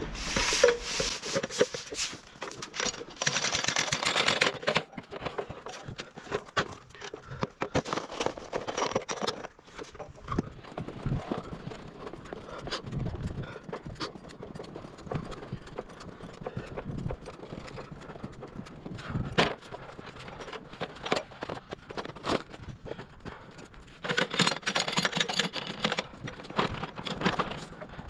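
Irregular knocks, clanks and scrapes of boots and hands on the rungs of a fiberglass extension ladder as a lineman climbs down it. Denser rustling and crunching near the end, with footsteps in packed snow.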